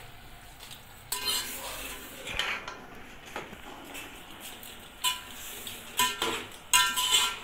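Metal spoon scraping and clanking against the inside of a metal cooking pot as cooked macaroni is stirred, in several short ringing strokes, the loudest near the end.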